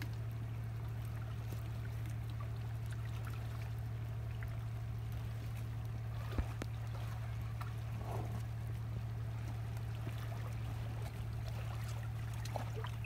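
A steady low hum over faint water lapping among the shore rocks, with scattered faint clicks and tearing as a Komodo dragon pulls at a turtle carcass. A sharp click comes about six seconds in.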